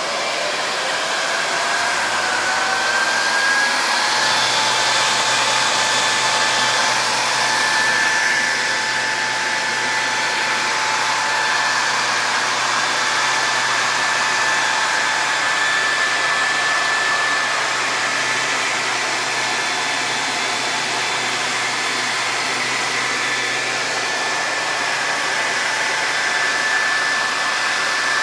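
Twin cooling fans of a Murata D1U-W-2000-48 server power supply running at high speed with a steady rushing whine. The whine rises in pitch over the first few seconds as the fans spin up, then holds steady. A low hum joins about four seconds in.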